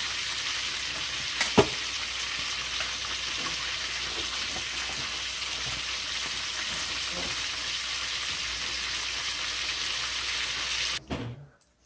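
A pot of soup simmering on a gas burner, a steady sizzling hiss, while it is ladled out. A ladle clinks once against the stainless steel pot about a second and a half in, with a few lighter knocks later. The hiss cuts off abruptly near the end.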